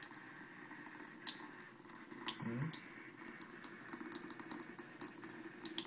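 Thin stream of water running from a bathroom sink faucet into the basin with a steady splash. A cat lapping at the stream breaks it into quick, irregular little clicks and splats, several a second.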